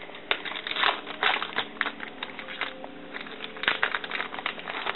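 Trading cards being flipped through by hand: a string of irregular soft snaps and rustles of card stock sliding over card stock.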